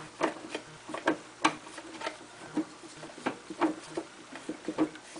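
Threading die in a hand-turned die stock cutting threads onto an aluminum mandrel: a string of irregular metallic clicks and creaks as the die bites and the handle is worked round, roughly two a second.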